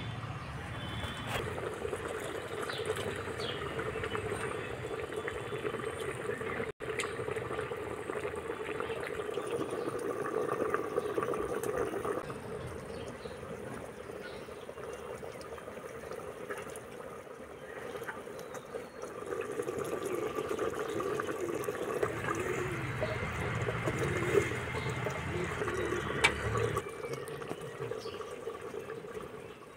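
Chicken and onions boiling in a clay cooking pot, a steady bubbling of liquid.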